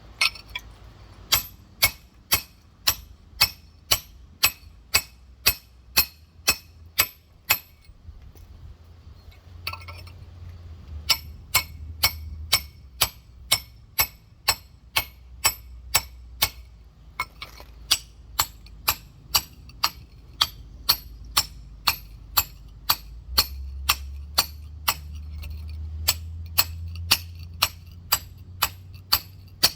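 A rock hammer striking a large geode in a steady rhythm of about two sharp, ringing blows a second, pausing for a few seconds about a third of the way through. The blows are working around the shell to crack it open.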